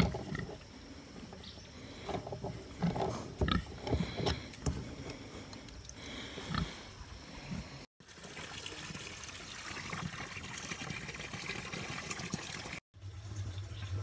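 Clicks and knocks of a ratchet wrench working the bulkhead fitting on a plastic water barrel, then a steady stream of water running out of the barrel's broken-out fitting hole onto mud.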